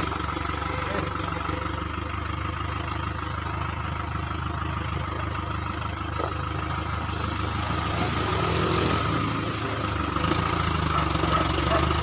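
A small cab-over truck's engine running, heard from inside the cab: a steady low hum with a thin steady whine above it. It gets a little louder about eight seconds in, and the engine note changes about ten seconds in.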